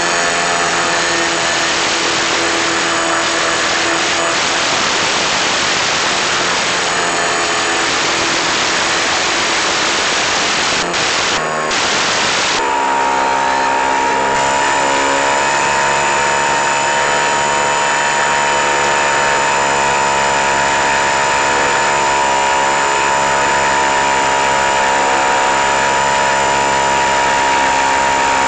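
Model airplane's motor and propeller heard from the onboard camera, a steady whine mixed with wind rush. About halfway through, the sound briefly dips and then settles into a clearer, steadier whine.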